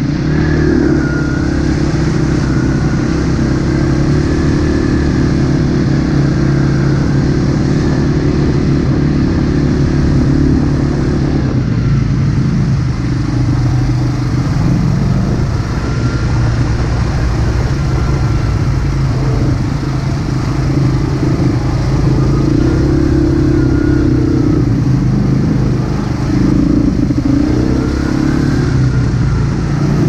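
Dirt bike engine running as the bike rides along a dirt trail. The pitch rises and falls a little with the throttle, and the engine eases off briefly about twelve seconds in.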